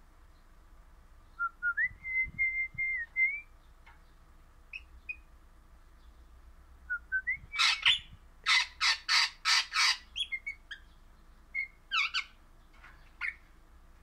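Crimson rosella calling. A few rising whistled notes lead into a held flat whistle near the start. Around the middle comes a rapid series of about seven loud, sharp notes, and a few scattered calls follow near the end.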